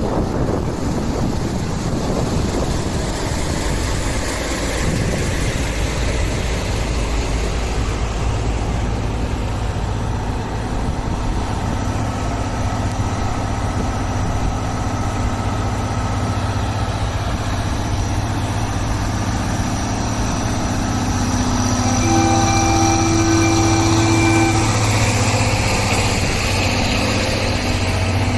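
Engine idling with a steady low hum. Near the end a held tone at several pitches at once sounds over it for about two seconds.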